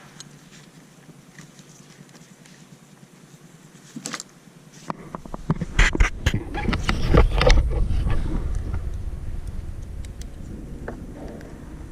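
Chevrolet TrailBlazer 4.2L Vortec inline-six engine starting about five seconds in after a few clicks, loudest just after it catches, then settling as it runs.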